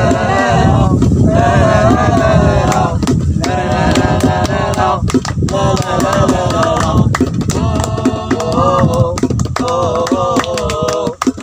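Group of young men singing an Arabic song together and clapping their hands along, the claps heard as many sharp slaps over the voices.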